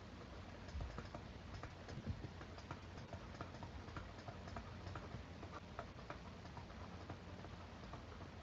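Faint, irregular clicks and light taps of a stylus on a tablet screen during handwriting.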